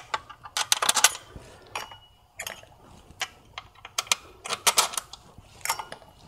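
Light metallic clicks and clinks in short clusters: steel bolts being handled from a metal parts tray and started by hand into a VW/Audi 2.0T TSI intake manifold.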